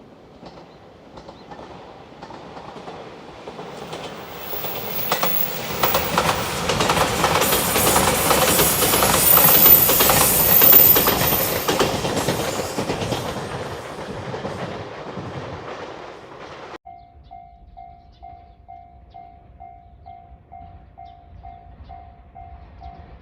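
A train passes over a level crossing, its wheels clattering over the rail joints; it builds to loudest about ten seconds in, then fades. The sound then cuts abruptly to a Japanese level-crossing bell ringing steadily, an evenly repeated electronic ding.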